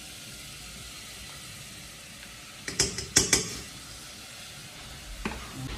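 A metal spoon clicking and knocking against a margarine tub and a saucepan while margarine is scooped into the pan: a quick cluster of clicks about three seconds in, and a few more just before the end. Under it, the steady hiss of pots boiling on the stove.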